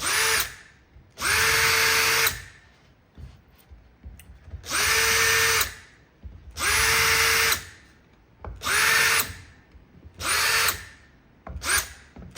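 Power drill with a countersink bit running in short bursts of about a second each, around seven times, the motor spinning up to a steady pitch and winding down between them, countersinking screw holes in softwood.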